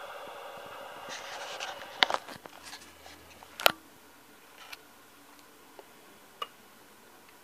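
A steady hum of several even tones ends about two seconds in, followed by handling noise: a few sharp clicks and knocks, the two loudest about two and three and a half seconds in, with fainter ticks later.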